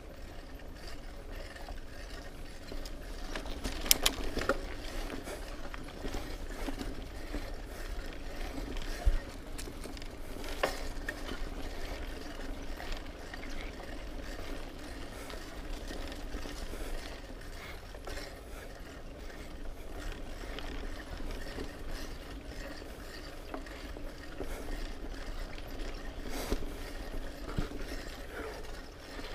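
Mountain bike rolling over a dirt trail, its rear freehub ticking while coasting, with a couple of sharp knocks from bumps about four and nine seconds in.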